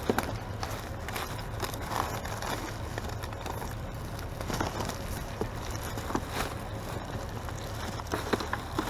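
Rummaging through bagged bulk trash: scattered rustling and a few light knocks over a low, steady rumble.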